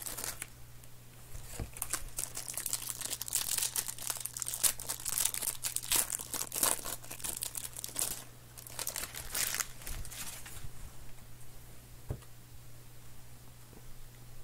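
Plastic trading-card pack wrapper crinkling as it is pulled open and the cards are slid out. The crinkling stops about ten seconds in, leaving a few faint clicks over a steady low hum.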